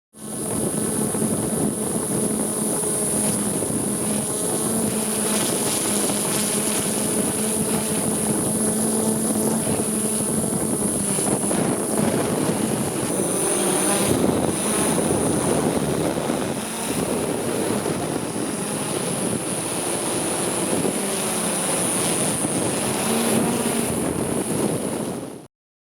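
DJI S900 hexacopter's six electric motors and propellers in flight: a steady buzzing hum with a thin high whine over a rushing noise, the pitch wavering slightly as the motors adjust.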